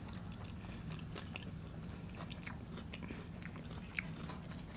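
People chewing and biting food close to the microphone: faint wet chewing and small crunches with irregular light clicks, one sharper click about four seconds in.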